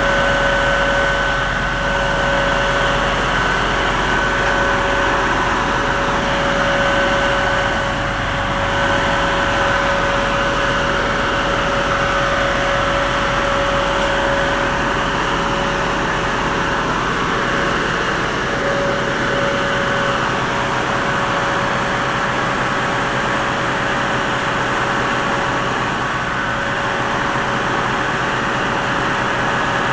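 Diesel engine of heavy equipment running steadily, with a steady high whine over the engine noise and no hammer blows.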